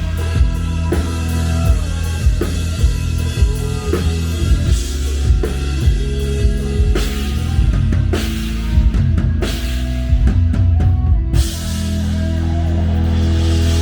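Rock music with a drum kit playing busily, bass drum and cymbal hits over steady bass notes. About eleven and a half seconds in, the drumming stops and a smooth, sustained music sound carries on.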